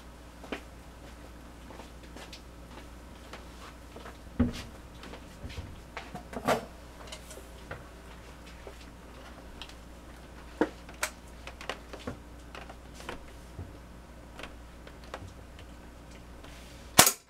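Scattered clicks and knocks as a Winchester M14 CO2 pellet rifle by Daisy is handled and brought up to aim, then one sharp, loud shot from the rifle near the end.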